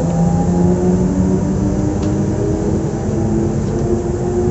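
Z 20500-series (Z2N) electric multiple unit under way: several whining traction-motor tones that shift slowly in pitch over a steady rumble of running.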